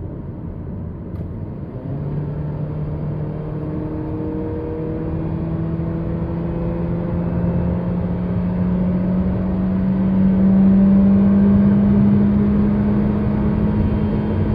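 Honda Civic 1.8 i-VTEC inline-four engine accelerating hard. The engine note gets louder about two seconds in and then climbs slowly and steadily in pitch in one gear, with no gear change.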